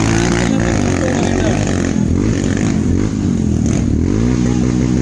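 Motorcycle engines running and being revved, their pitch rising and falling several times.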